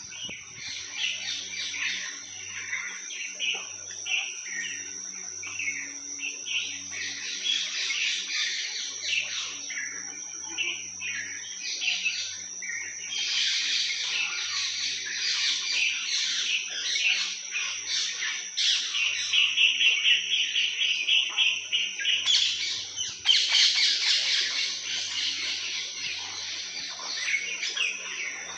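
Many birds chirping and calling over one another, a dense tropical bird chorus that thickens in the middle and peaks in a loud flurry near the end. A steady high-pitched whine runs underneath throughout.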